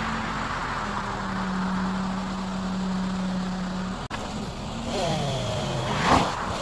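Tractor engine running steadily. The sound breaks off abruptly about four seconds in, then the engine returns with its pitch shifting up and down.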